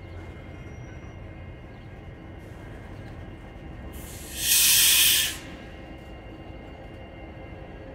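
Freight train of tank cars rolling slowly past, with a steady rumble and faint wheel tones. About four seconds in, a loud burst of hissing lasts about a second and a half, then cuts off.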